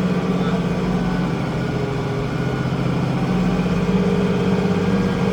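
International Harvester 1566's turbocharged six-cylinder diesel running steadily under load while pulling a field cultivator.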